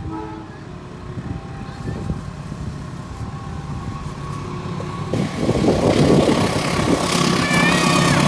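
An approaching train: a diesel locomotive's engine growing steadily louder, with the rush of the wheels on the rails swelling about five seconds in and a thin high squeal near the end.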